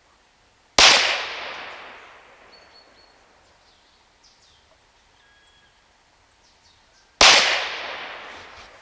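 Two shots from a .22 semi-auto PCP air pistol built on a Huben K1 action, about six seconds apart, each a sharp crack followed by a long fading echo.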